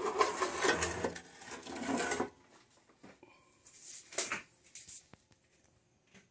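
Sheet-metal top cover of an amplifier chassis being slid and lifted off, a scraping metal rattle for about two seconds, then quieter handling with a single knock about four seconds in.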